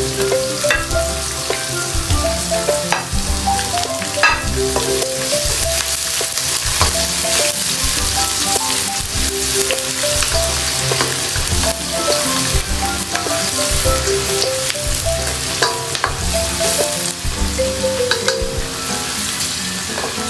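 Garlic and onion sizzling steadily as they fry in hot oil in a pan, with a utensil clicking against the pan now and then as they are stirred. Light background music plays underneath.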